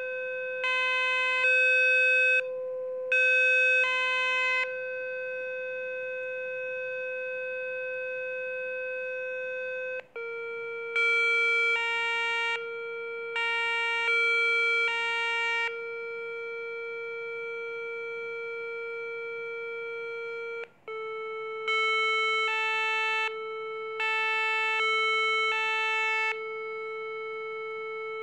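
Rife frequency tones: a steady mid-pitched electronic tone that steps slightly lower in pitch twice, about ten and twenty-one seconds in, with short clusters of louder, higher beeps layered over it after each step.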